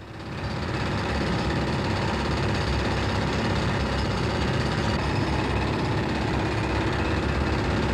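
Steady mechanical rumble and rattle of tunnelling-shield machinery as its hydraulic erector arm lifts concrete lining sections into place. It swells in during the first second.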